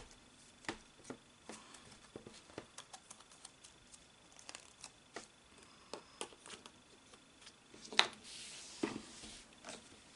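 Pokémon trading cards being handled: a run of small clicks and ticks as cards are slid through the hands and laid on the pile, with a sharper snap about eight seconds in followed by a brief rustle.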